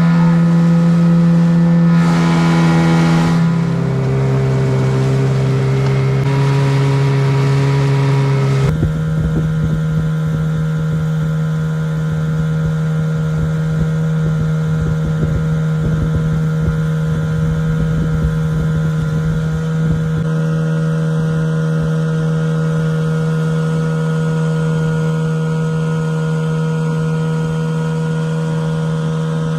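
Gasoline outboard motor running steadily, pushing a small aluminum jon boat under way. Its pitch changes abruptly a few times in the first nine seconds, then holds steady.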